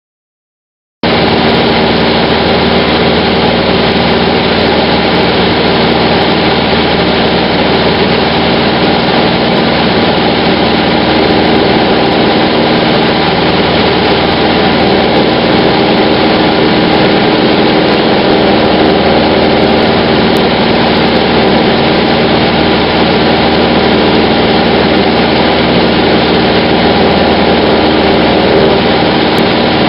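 Cessna 150's four-cylinder Continental O-200 engine and propeller running steadily in cruise, heard from inside the cabin; it cuts in abruptly about a second in.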